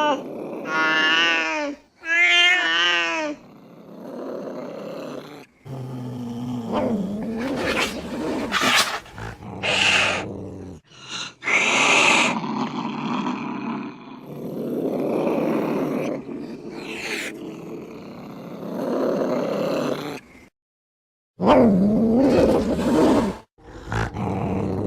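Domestic cats in an angry standoff: two wavering yowls at the start, then long low growls and yowls broken by sharp hisses. There is a short silent break near the end before the growling resumes.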